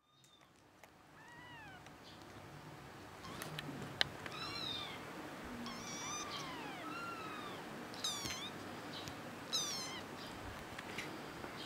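Young kittens mewing over and over: thin, high-pitched mews that rise and fall, some in quick pairs. A single sharp click about four seconds in.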